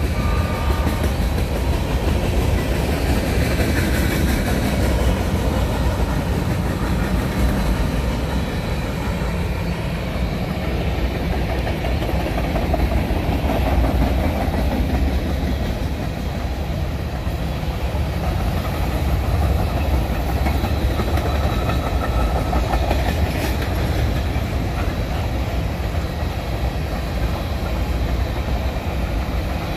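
Norfolk Southern freight train running past at track speed: a steady rumble of steel wheels on the rails with clickety-clack from the passing cars.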